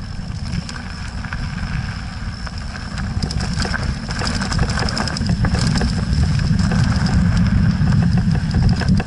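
Wind buffeting an action camera's microphone on a mountain bike descending a rough gravel singletrack, with the tyres crunching and the bike rattling over stones. The rumble builds as the bike picks up speed.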